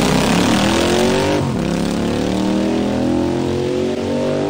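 A vehicle engine accelerating, its pitch climbing steadily, with a short break about a second and a half in, like a gear change.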